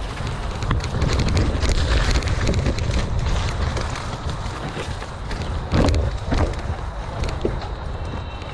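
Mountain bike ridden fast over a rough dirt trail: wind buffeting the microphone, with the bike rattling and tyres clattering over roots and stones in frequent sharp clicks and knocks, loudest about six seconds in.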